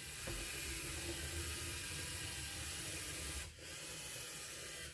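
Steady hiss with a low hum underneath, and a faint whir from the LEGO EV3 robot's motors as it drives. The hiss drops out briefly about three and a half seconds in.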